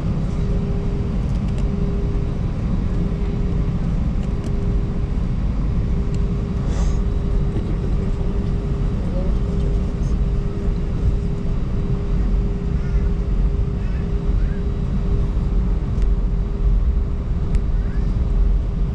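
Airliner cabin noise during taxi, heard from a window seat: the jet engines' steady low rumble with a constant mid-pitched drone running through it.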